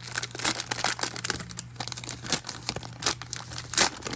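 Plastic wrapper of an NBA Hoops trading card fat pack being torn open and crinkled, in a quick run of irregular crackles.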